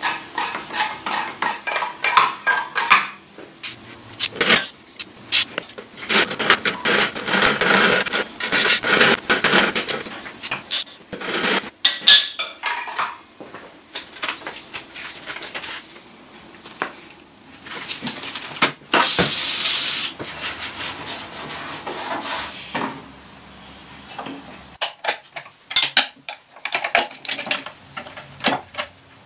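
Metal lathe parts clinking and knocking against each other, with stretches of rubbing and scraping, as the lathe is taken apart and cleaned. A short hiss comes about two-thirds of the way through.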